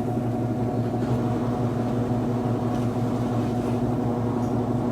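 Philco PLR14B washing machine spinning with a steady motor hum and a light vibration. The load is spread evenly, so the drum runs without knocking or shaking.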